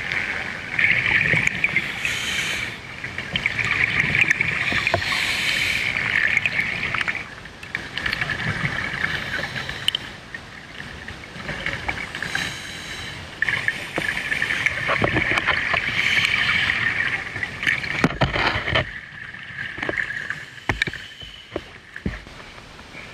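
Underwater sound of scuba divers: bubbling and gurgling water noise coming in bursts of a few seconds with short pauses between, and some clicks and knocks near the end.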